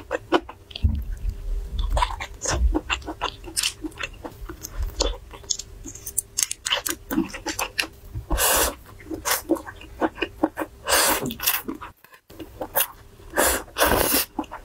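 Close-miked eating sounds: a person chewing garlic clams and vermicelli noodles, with many irregular wet clicks and smacks and two longer noisy stretches about eight and a half and eleven seconds in.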